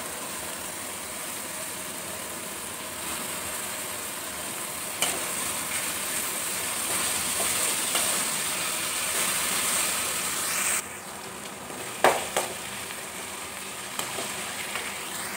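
Onions, spring onions and curry leaves sizzling in hot oil in an aluminium kadai as they are stirred with a metal slotted spatula. The sizzle grows louder in the middle and drops suddenly about eleven seconds in. About a second later there is a sharp clink of the spatula against the pan.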